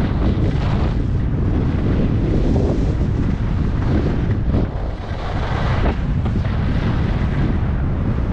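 Wind buffeting the microphone of a camera carried by a skier going downhill, a steady low rumble, with the hiss of skis sliding on groomed snow. It eases briefly a little before five seconds in.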